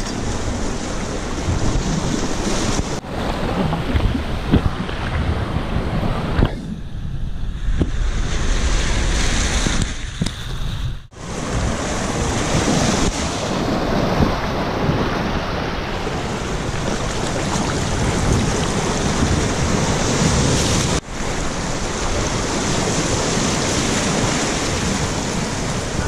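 Sea surf breaking and washing over shoreline rocks, with wind buffeting the microphone; the sound dips briefly a few times.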